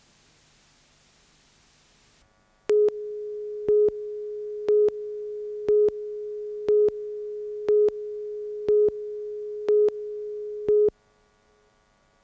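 Videotape countdown leader: a steady electronic test tone with a louder pip each second, nine pips in all. It starts about two and a half seconds in, after hiss-level near silence, and cuts off about a second before the end.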